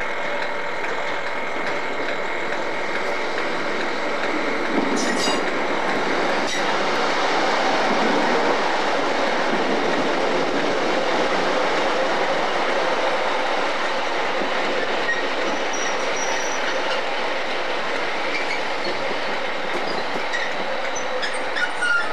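Class 156 Sprinter diesel multiple unit arriving and running past close by, its wheels and underfloor engine making a rumble that swells to its loudest partway through. A steady whine is heard at the start and fades within the first few seconds.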